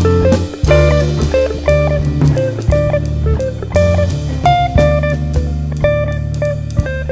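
Background instrumental music: plucked guitar notes over a bass line and drum kit keeping a steady beat.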